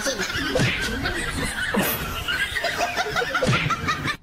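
People laughing, a run of quick repeated laughs, mixed with a little talk.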